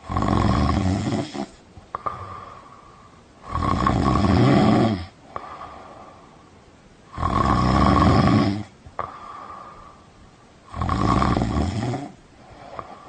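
A person snoring in a steady rhythm: four loud snores about three and a half seconds apart, with softer breathing between them.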